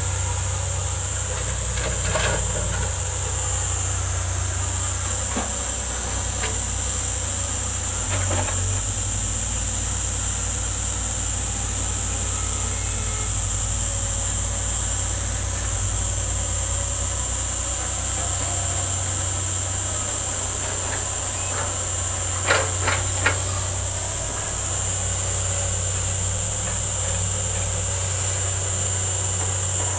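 Diesel engines of two crawler excavators, one a Komatsu, running in a steady low drone at work, with a steady high-pitched hiss over them. A few sharp knocks come through, three in quick succession about two-thirds of the way in.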